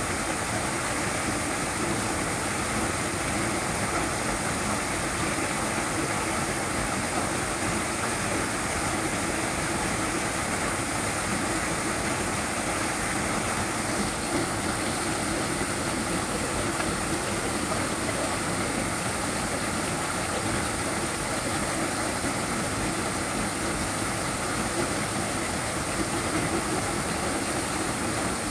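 Small waterfall: water pouring and splashing in a steady, unbroken rush.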